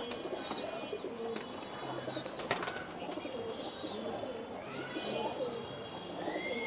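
Domestic pigeons cooing low now and then, under many high chirps repeated from other birds. There is a single sharp click about two and a half seconds in.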